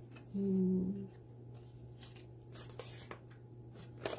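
Faint rustling and tapping of cardstock and a paper frame being handled. About half a second in comes a short, low hummed "mm" from a woman, the loudest sound, over a steady low background hum.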